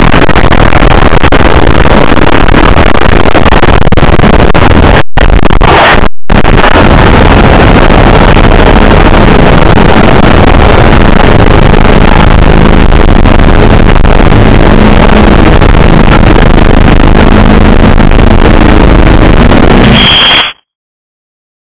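Blaring, heavily distorted noise at full level, with two brief dropouts about five and six seconds in, cutting off abruptly near the end.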